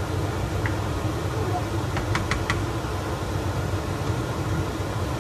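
A steady low hum with three quick clinks of a metal ladle against a cooking pot about two seconds in.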